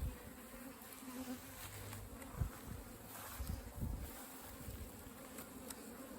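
Russian honeybees buzzing steadily around an opened nucleus hive during a frame inspection, with a few low bumps, the loudest about two and a half seconds in.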